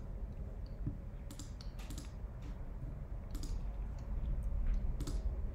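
Irregular clicks of a computer mouse and keyboard, about a dozen short clicks at uneven intervals, over a steady low hum.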